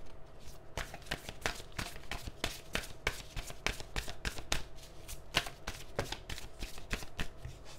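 Tarot cards shuffled by hand: a dense, irregular run of quick card clicks and flicks.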